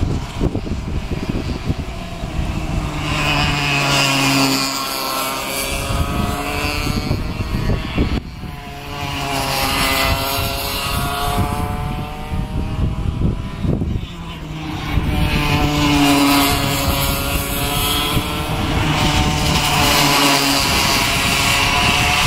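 Cadet karts' small two-stroke engines running on a circuit: a high, buzzing engine note that rises and falls in pitch in repeated waves as groups of karts come past and through the corners.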